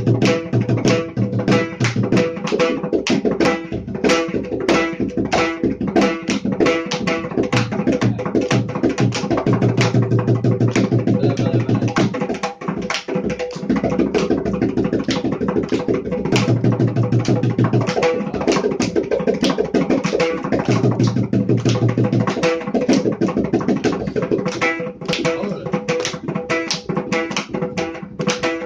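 Mridangam solo (laya vinyasam) in Misra Chapu tala: a rapid, continuous stream of crisp strokes on the pitched right head, with deep bass strokes from the left head coming in stretches.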